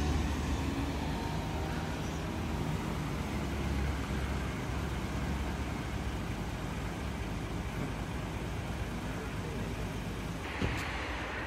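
Road traffic on a city street: a steady low rumble and hiss of cars. A short click comes about ten seconds in, and the hiss grows brighter near the end.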